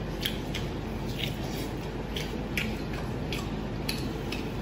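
A person chewing braised pork elbow, the gelatinous skin fried in oil, with about six wet mouth smacks and clicks at irregular intervals over a steady low background hum.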